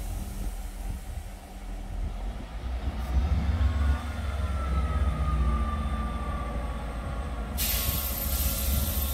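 Class 159 diesel multiple unit standing at the platform, its underfloor diesel engines idling with a low rumble and a faint falling whine midway. Near the end a loud air hiss starts suddenly and carries on, typical of the air brakes being released before departure.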